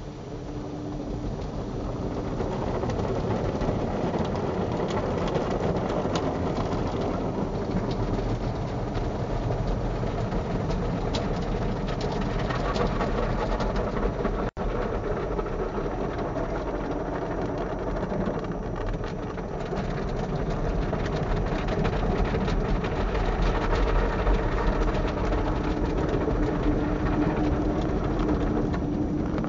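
Drive-through car wash rotating brushes and water jets beating on the windshield and roof, heard from inside the car: a steady, dense churning swish and spatter. A steady hum sits under it at the start and again near the end, and the sound drops out for an instant about halfway through.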